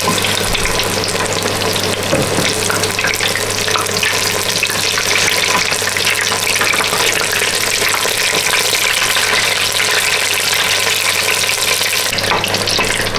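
Two battered fish fillets deep-frying in a large pot of hot oil: a steady, dense sizzling and crackling, with a steady low hum beneath.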